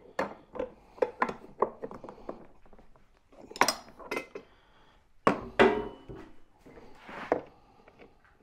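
Steel ring spanners and screwdrivers clinking against a mower's steel blade and bolt while a very tight blade bolt is being broken loose. Quick light clicks over the first two seconds are followed by a few louder metal clanks, the loudest about five and a half seconds in.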